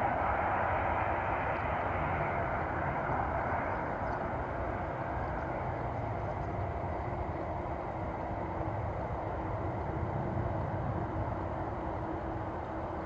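Jet airliner engines running, a steady rushing noise over a low rumble; the higher part of the rush fades away over the first few seconds, leaving the rumble.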